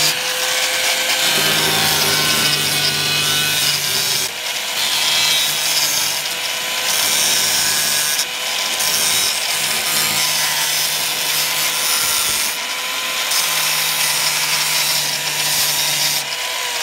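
Angle grinder running with its abrasive disc grinding rust off the sheet-steel edge of a car's front fender, a steady motor whine under the harsh rasp of the disc on metal. The grinding rasp drops briefly several times while the motor whine holds steady.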